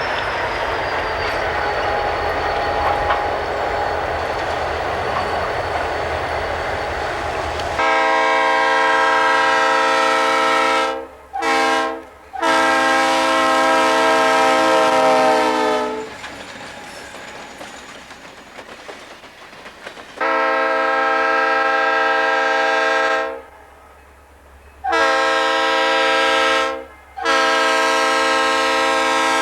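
Railroad locomotive's air horn sounding a chord in a series of long blasts with one short blast among them, after several seconds of the train's rumble and wheel clatter.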